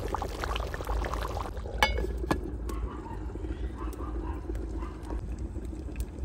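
Thick curry bubbling in a metal pot over a wood fire, with a sharp metallic clank about two seconds in as the lid goes back on the pot. The fire pops and crackles now and then.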